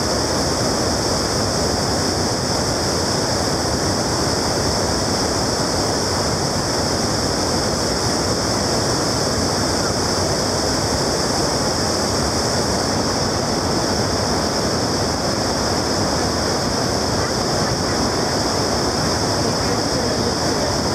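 Water pouring over a tiered river weir and churning in the whitewater below it: a steady, even rushing.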